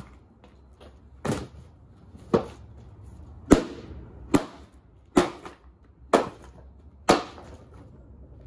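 Seven sharp smashing blows, roughly one a second, striking the casing of cheap consumer electronics being broken apart.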